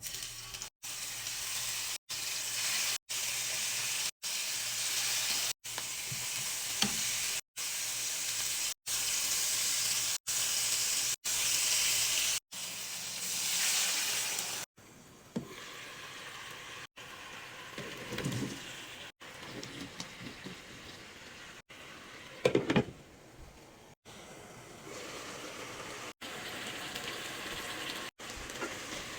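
Food sizzling as it fries in hot oil in a pan. The sizzle is loud for about the first half and breaks off briefly every second or so, then goes on more quietly with a few knocks from stirring in the pan.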